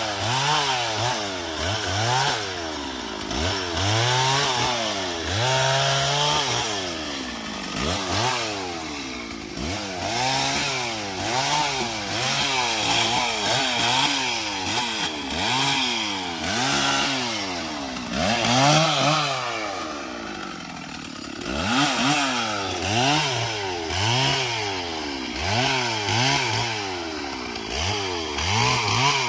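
Stihl petrol chainsaw cutting through the trunk and limbs of a felled tree. Its engine note rises and falls over and over, about once a second, as the throttle is worked and the chain bites into the wood.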